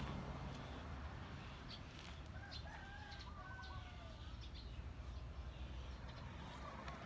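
Faint bird calls: a few short, bending calls overlapping about two to four seconds in, over a low steady rumble.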